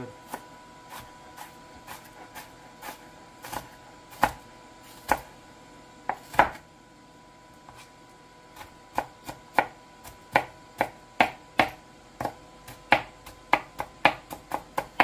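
Kitchen knife chopping an onion on a cutting board. Scattered, uneven strikes come first, a few of them loud. After a short pause a steady run of chops follows, about two to three a second.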